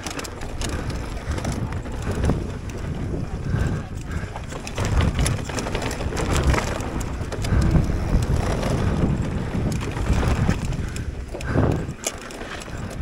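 Giant Reign mountain bike descending a rough dirt trail at race speed: wind buffeting the microphone, tyres rumbling over dirt, and many sharp rattles and knocks from the bike as it hits bumps.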